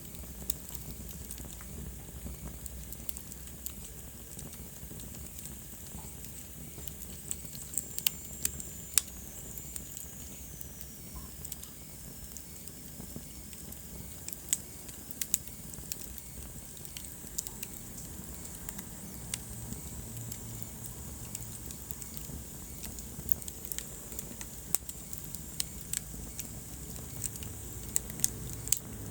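Wood fire burning in a fireplace: a steady low rumble of flames with frequent sharp crackles and pops. A faint high whistle slides down in pitch about a third of the way through.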